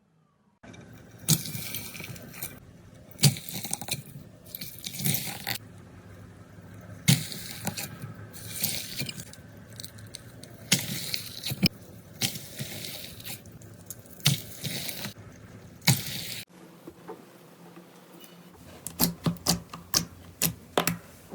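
Slime being squeezed, pressed and stretched by hand, giving wet squishing and sticky sounds with sharp clicks in irregular surges. About 16 s in it cuts to another clip with a quicker run of sharp clicks.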